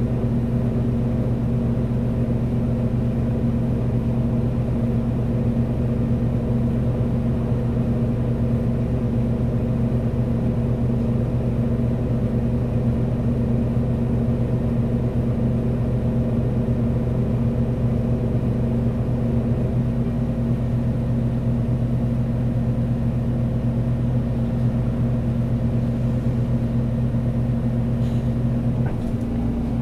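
Diesel engine of a Solaris Urbino 12 III (Euro 6) city bus running at a steady idle, an even low hum that holds one pitch. Right at the end the engine note begins to rise as it picks up.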